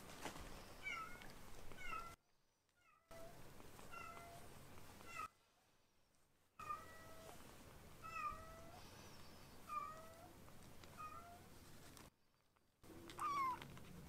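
Very young tabby kittens mewing over and over in short, high-pitched cries, one or two a second, with three brief pauses and a louder, longer mew near the end.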